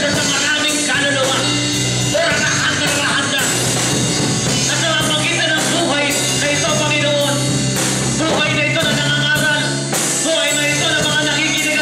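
A man singing into a handheld microphone over steady instrumental accompaniment.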